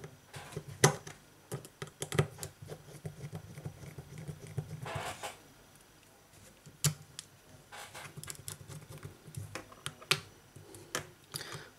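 Scattered small clicks and taps from handling an opened Samsung Galaxy S8+: plastic clips and parts being pressed into place and a small precision screwdriver working on the midframe screws, with a brief scraping rustle about five seconds in.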